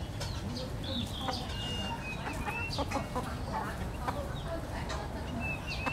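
Chickens (a gamefowl rooster and hens) clucking softly while pecking feed, with quick pecking clicks and a few high thin whistled chirps, over a steady low rumble.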